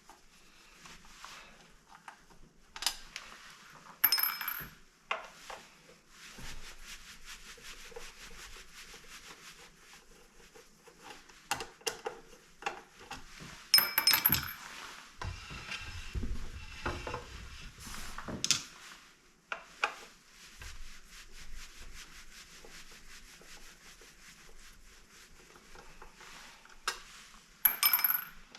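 Screws being worked out of a KitchenAid stand mixer's metal housing with a square-drive screwdriver: quiet scraping and rubbing, broken by several sharp metallic clinks with a ringing tail, a couple early, a couple around the middle and one near the end.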